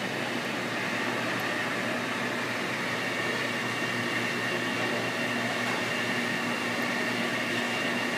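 Dexter commercial washing machine running, a steady mechanical hum with a high whine that strengthens about three seconds in.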